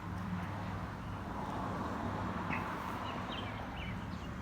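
Outdoor background sound: a steady low hum with a rush of noise that swells and fades in the middle, and a few short bird chirps in the second half.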